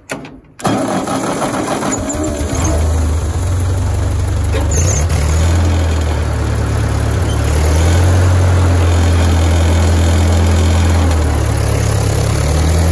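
A vintage tractor's engine starts almost at once, catching about half a second in, then runs steadily with its speed shifting a little.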